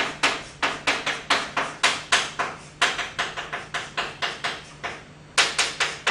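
Chalk writing characters on a blackboard: a quick run of sharp taps and short scrapes at about four or five strokes a second, a pause of about a second and a half, then a fast cluster of strokes near the end.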